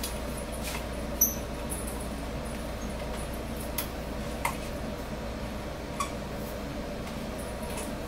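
A few light clicks and small knocks from handling a coaxial jumper cable and its connector while it is swapped, the clearest about a second in and softer ones later. A steady low hum lies underneath.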